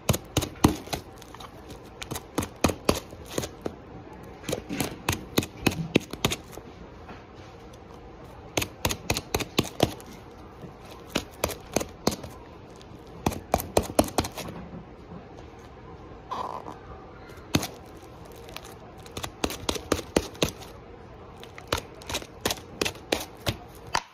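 Purple slime squeezed and poked in the hand close to the microphone, giving bursts of rapid sharp clicks and pops, several a second, with short pauses between bursts.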